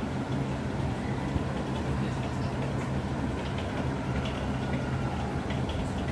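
Steady low mechanical hum with a constant drone, with faint scattered ticks over it.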